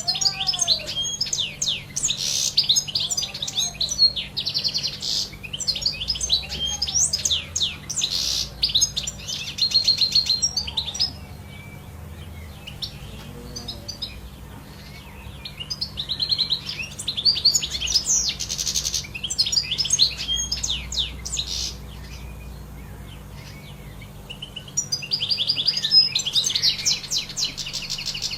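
European goldfinch singing: long runs of fast, tinkling twitters and trills, the song pausing twice for a few seconds before starting again.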